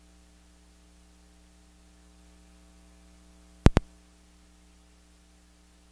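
Steady mains hum on the sound system. A little past halfway, two sharp clicks in quick succession as a clip-on microphone is handled.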